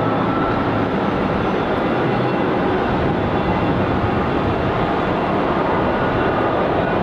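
Steady jet noise from a taxiing Embraer 175 regional jet, its twin General Electric CF34 turbofans running at low power.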